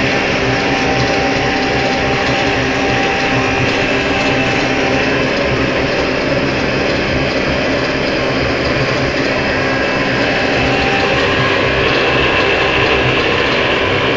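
Homemade used-motor-oil heater burning steadily, a loud, fast, even rattle with no breaks.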